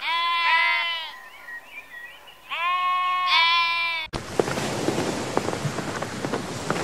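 Scottish Blackface sheep bleating: long, wavering bleats in two bouts, one right at the start and one about two and a half seconds in. About four seconds in, the sound cuts to a steady rush of splashing water with small clicks.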